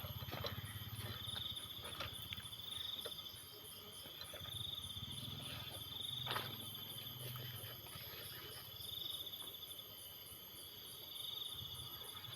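Insects in the forest: a steady high-pitched trill with a lower buzzing call that swells and fades every two or three seconds, and a few sharp snaps.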